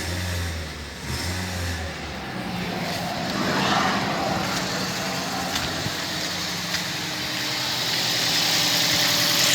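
Toyota Yaris engine idling rough with a misfire; the cause is a dead coil-on-plug ignition coil. It is a steady running sound that grows slightly louder toward the end, with a few faint clicks.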